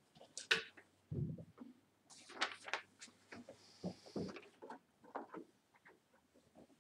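Scattered light knocks, clicks and rustles of things being handled and moved, with a low thump about a second in.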